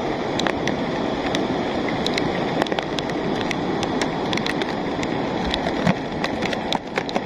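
Steady rain, with drops ticking sharply close by at irregular moments, over the even rush of a muddy rain-fed lahar flood pouring down a volcanic river channel.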